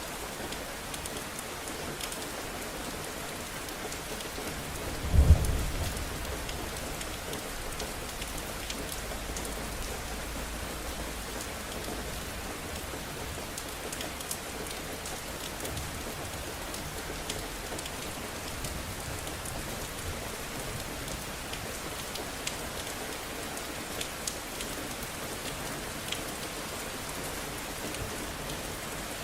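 Steady rain falling, with scattered drop ticks. About five seconds in a single sharp clap of thunder breaks, trailing off into a low rumble for several seconds.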